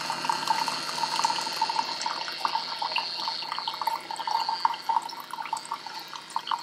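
Keurig single-serve coffee maker dispensing a thin stream of coffee into a ceramic mug: steady pouring and splashing of liquid, over a steady high whine.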